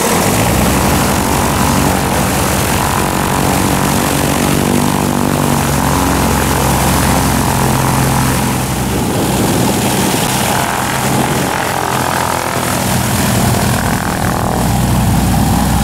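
1977 Cessna 182Q's six-cylinder Continental O-470 engine running with its propeller turning, a loud steady drone as the plane taxis.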